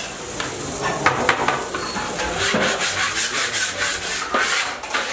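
Metal spatula scraping against steel cookware in a run of quick rasping strokes, thickest in the second half.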